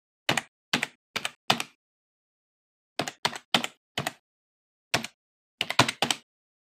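Computer keyboard keystrokes, about a dozen single key presses in uneven runs: four, a pause, four more, one alone, then a quick run of four near the end.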